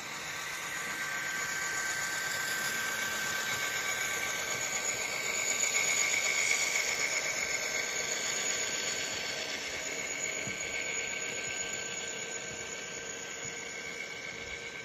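N scale Bachmann Dash 8-40CW model diesel locomotive running past under DCC with its sound decoder on: a diesel engine sound from its small speaker, mixed with the whir of the model rolling on the track. It grows louder to a peak about six seconds in as the locomotive goes by, then fades as the hopper cars follow.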